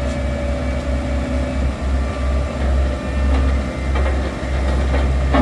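Heavy engine running with a loud, pulsing low rumble; a steady higher engine tone drops away about a second and a half in.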